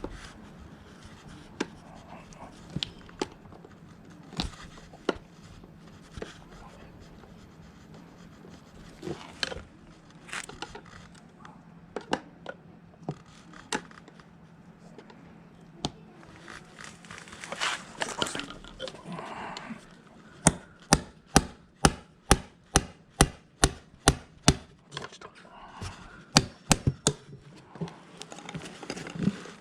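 Occasional tool clinks and knocks during moped repair work, then, about two-thirds of the way in, a steady run of sharp hammer taps, two or three a second, as a part around the wheel axle is driven out.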